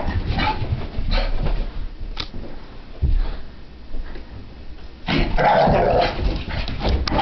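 Brittany spaniel puppy barking and growling in short, irregular bursts, the loudest about five seconds in, during a frantic random activity period (zoomies): excited play noise, not aggression.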